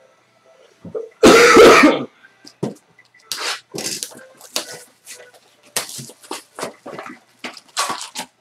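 One loud cough about a second in, followed by a run of short rustles and clicks from trading cards and foil pack wrappers being handled.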